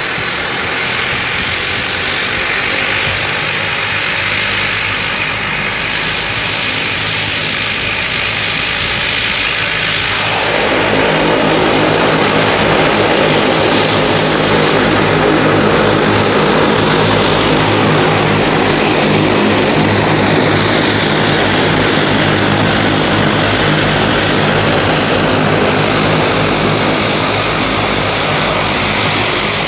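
Turboprop engines of a Bombardier Dash 8-300 running at taxi power, a steady propeller drone with a faint high whine above it. About ten seconds in the drone grows louder and fuller as the aircraft comes closer.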